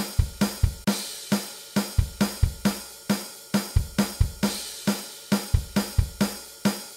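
Music track of a steady drum-kit beat, with kick drum, snare and hi-hat hitting at an even tempo, a few strokes a second.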